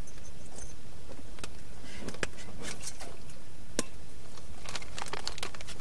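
Crinkling of plastic MRE pouches and scattered sharp clicks and taps as a stainless steel water bottle is picked up and its cap handled, over a steady low rumble.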